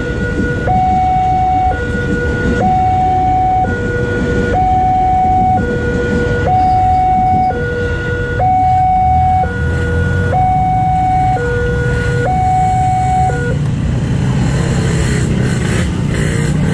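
Railway level-crossing alarm sounding its two-tone warning, a lower and a higher tone taking turns about once a second, over the rumble of a passing KRL electric commuter train. The alarm stops about 13 seconds in, the sign that the train has cleared the crossing.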